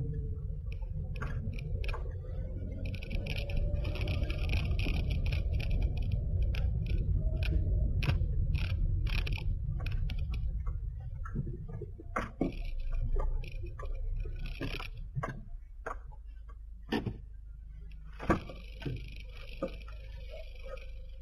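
Car cabin noise with a steady low road and engine rumble while driving, which drops away about halfway through. The quieter second half holds scattered sharp knocks and clicks.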